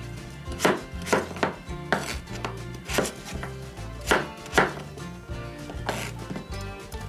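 Kitchen knife cutting peeled raw potatoes into chunks on a wooden cutting board: sharp, uneven knocks of the blade through the potato onto the board, roughly one or two a second.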